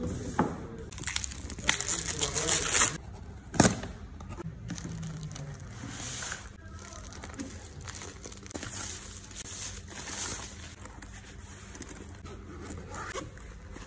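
Plastic stretch wrap being torn and crinkled off a cardboard box for about two seconds, then a single sharp snap. After that, quieter rustling and scraping of cardboard and plastic packaging as the box is opened and a padded sleeve is pulled out.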